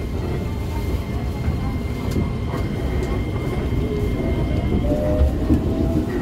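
Commuter electric train's IGBT-VVVF traction inverter and motors whining over the rumble of wheels on rail. Two steady high tones cut off about five seconds in, and a lower whine rises in pitch near the end.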